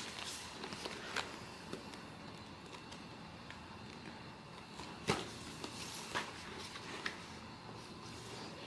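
Quiet handling of blind box packaging and cards, with a few sharp clicks and taps about a second in and again around five, six and seven seconds in.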